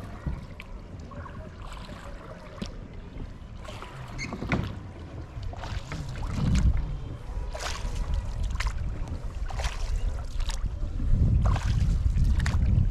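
Shikara being paddled across calm lake water: the wooden paddle splashing and knocking against the hull at irregular strokes, over a low wind rumble on the microphone that grows stronger near the end.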